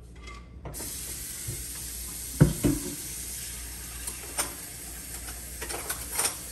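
Steady hiss of kitchen noise with scattered knocks and clinks of kitchenware; the sharpest knocks come about two and a half seconds in, with more near the end.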